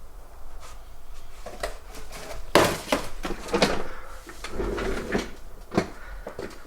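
A series of knocks and clunks, the loudest about two and a half seconds in, with a few more sharp knocks over the next three seconds.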